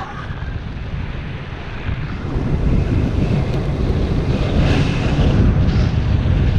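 Wind rushing over the camera microphone in paraglider flight, a steady low roar of airflow that grows louder about two seconds in.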